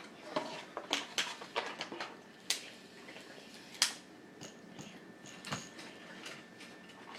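Someone eating takeout food: irregular sharp clicks and crunches, the loudest about four seconds in.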